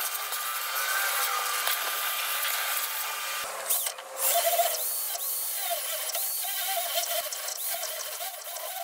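Corded hammer drill boring out a steel ball-joint rivet, heard sped up about ten times. It runs steadily for the first few seconds, cuts out briefly about three and a half seconds in, then goes on in short, uneven spurts.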